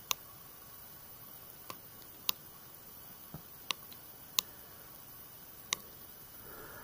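Sharp plastic clicks of an e-bike's handlebar display buttons being pressed, about seven single clicks at uneven intervals, as the readout is stepped through to the trip and total distance.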